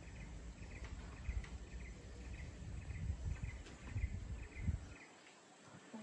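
A small forest animal gives a short high chirp over and over, about two a second, over a low rumble that drops away about five seconds in.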